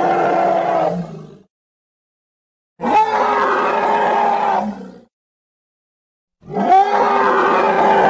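Made-up Euoplocephalus dinosaur roar sound effect: one roar fading out about a second and a half in, a second lasting about two seconds in the middle, and a third starting near the end, with silent gaps between them.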